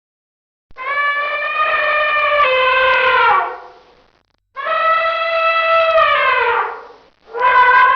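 Elephant trumpeting: three long blaring calls, each holding a steady pitch and then sliding down at its end. The third call starts near the end.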